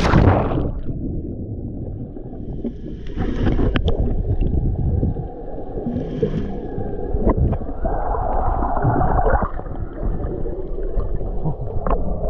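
Muffled sound of water heard by a submerged camera: a low rumbling wash of water movement and bubbles with a few sharp clicks. It starts with a brief splash-like burst as the camera goes under.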